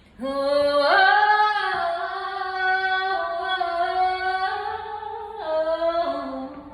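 A woman singing a wordless improvised melody, one voice with no accompaniment, holding long notes that step up and down. It starts just after the beginning and fades away near the end.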